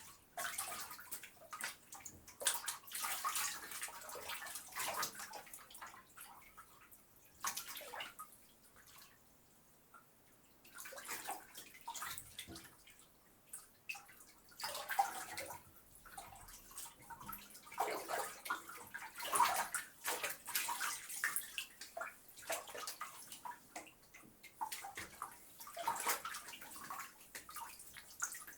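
Bathwater sloshing and splashing in irregular swishes, one surge after another with short lulls between, as someone moves about in the filled tub.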